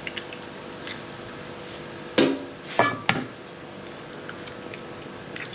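Eggs cracked against the rim of a stainless steel mixing bowl: a few sharp taps around two to three seconds in, with fainter clicks of shell.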